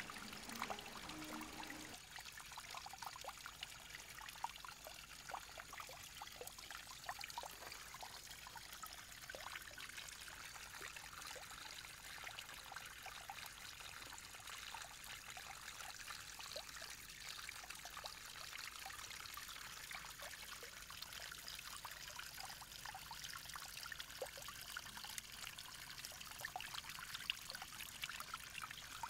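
Small garden fountain: water pouring from the mouth of a clay pot onto rocks and into a stone basin, a faint steady trickle.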